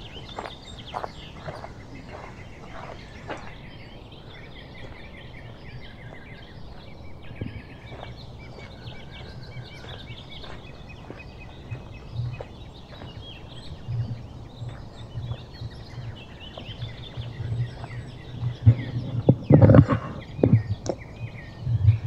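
Small birds chirping and singing in a conifer forest, with footsteps on a gravel path; the steps are louder with knocks and rustles near the end.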